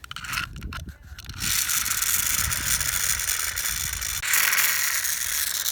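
Spring motor of a pull-back toy car: a few clicks, then from about a second and a half in a steady ratcheting gear whirr as the motor spins the wheels.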